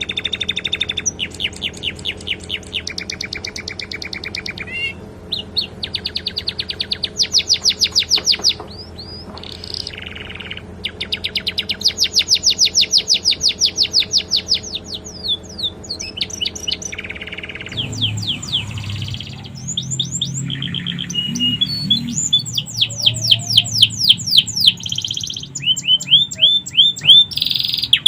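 Domestic canary singing a long, continuous song of rapid trills, each a fast run of repeated notes, linked by short whistled slurs. The song is filled with phrases copied from the sikatan londo flycatcher.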